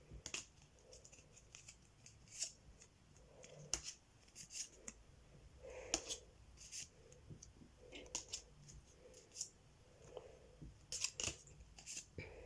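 Pokémon trading cards being slid off the stack and flipped one at a time: a string of short, faint papery swishes and flicks, coming every half second or so.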